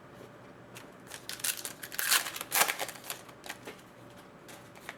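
Hockey trading cards being handled and slid against one another, a quick run of rustles and light scrapes that is loudest about two seconds in.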